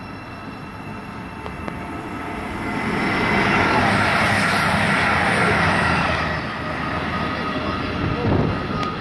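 East Midlands Trains diesel express running through the station at speed: a rush of wheel and engine noise that builds over the first three seconds, stays loudest for about three seconds, then eases. A short falling-pitch sound comes near the end.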